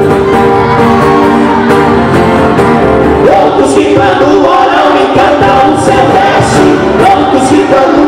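A live Portuguese-language gospel song: a man and a woman singing into microphones over a strummed twelve-string acoustic guitar.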